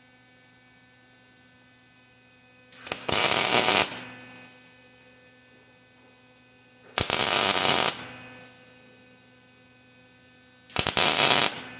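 Electric welding arc crackling in three short bursts of about a second each, tack-welding steel roller timing-chain links one link at a time, over a steady electrical hum.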